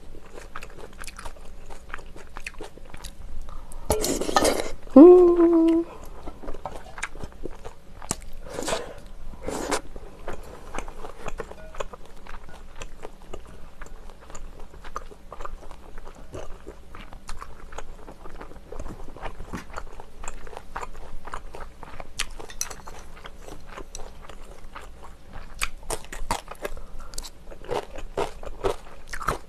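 Close-miked eating of beef and rice-cake soup: steady wet chewing with many small mouth clicks. About four seconds in comes a loud slurp, followed by a brief hummed 'mm', and two more short slurps a few seconds later.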